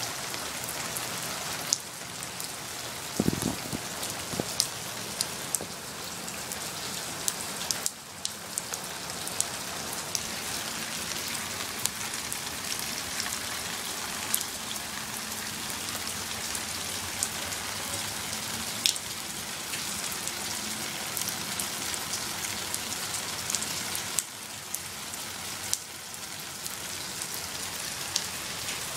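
Steady light-to-medium rain: a constant hiss with many individual drops ticking sharply on nearby surfaces. A brief dull, low thump about three seconds in.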